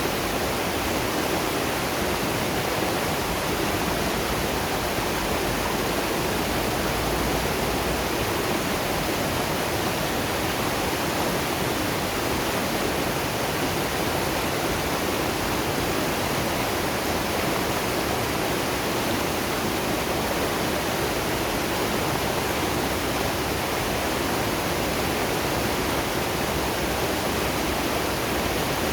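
Waterfall and river water rushing steadily, an even, unbroken wash of falling and flowing water.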